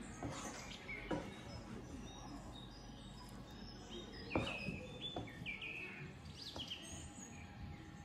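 Wooden spatula knocking and scraping against a plate and frying pan while rice is served, with a sharp knock about four and a half seconds in and another about a second in. Small birds chirp briefly in the background.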